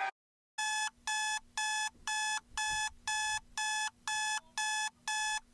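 Phone alarm going off: a repeating electronic beep, about two beeps a second, starting after a brief silence about half a second in.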